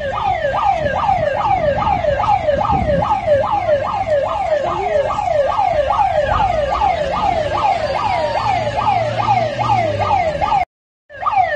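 Electronic alarm siren sounding a fast, repeated falling yelp, about three sweeps a second, over street noise. It cuts out briefly near the end.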